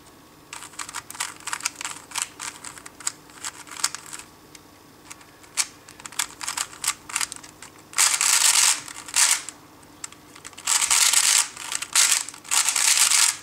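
Plastic 3x3 speed cube being turned by hand: a string of separate clicking layer turns, then three quick bursts of rapid turning about a second each, the algorithm executed at speed.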